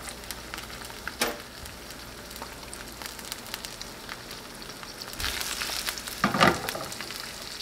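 Eggs frying in oil in a skillet: a steady soft sizzle with fine crackling, broken by a sharp knock about a second in and a brief louder clatter around six seconds in.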